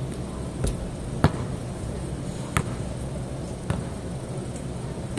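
Basketball bouncing on a concrete court: four sharp thuds at uneven intervals, the loudest a little over a second in, over a steady low background hum.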